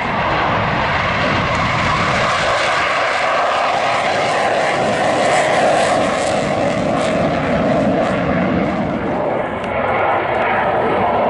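Loud, steady jet engine noise from a Panavia Tornado's twin RB199 turbofans as the jet flies past overhead.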